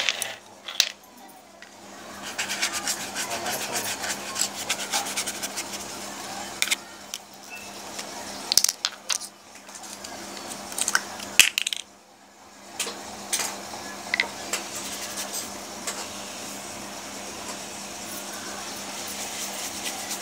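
Handling noise: irregular rubbing and scraping with scattered sharp clicks and knocks, the loudest a cluster of clicks about eleven seconds in, over a faint steady hum.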